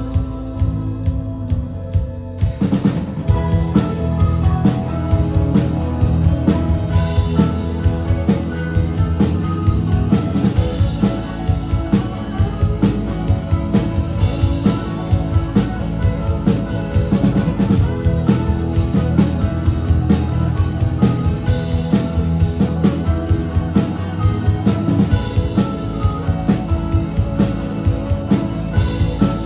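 Live indie rock band playing an instrumental passage on two electric guitars, electric bass and drum kit. The drums drop out briefly at the start under a held note, and the full band comes back in about two and a half seconds in.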